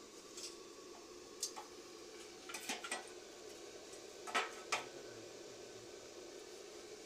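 A few light metallic clinks and taps, as of small metal pieces being handled: one about a second and a half in, a quick cluster near three seconds, and two sharper ones near the end, over a faint steady hum.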